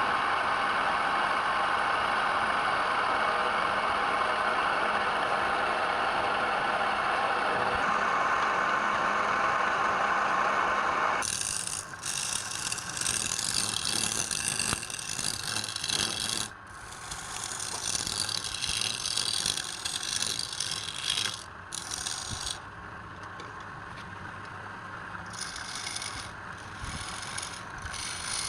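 Wood-turning machine running steadily. About eleven seconds in, this gives way to harsh scraping of wood, in stretches of a few seconds with short breaks between them.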